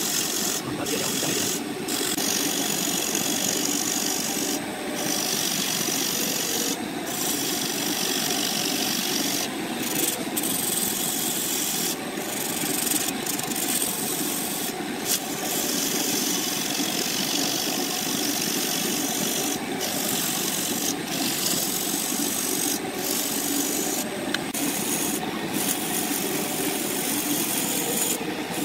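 Wood lathe running with a turning tool working against the spinning wood, a steady scraping, rasping hiss whose upper part briefly drops out every second or two.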